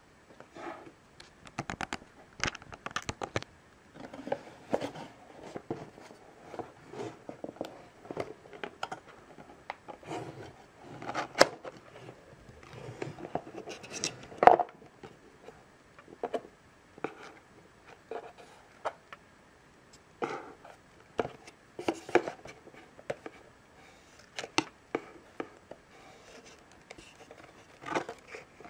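Cardboard box and paper inserts being handled: irregular scrapes, taps and rustles as the box lid is opened and a folded paper leaflet is pulled out and unfolded.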